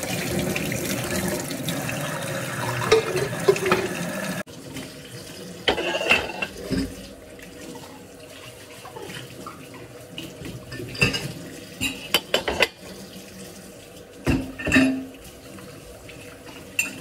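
Kitchen tap running into a stainless steel sink while a pot is scrubbed with a brush under the stream. The water cuts off suddenly about four seconds in, followed by scattered clinks and knocks of dishes being handled at the sink.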